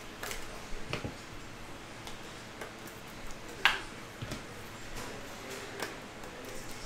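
A few scattered light clicks and taps of trading cards in clear plastic holders being handled and sorted, the loudest about halfway through.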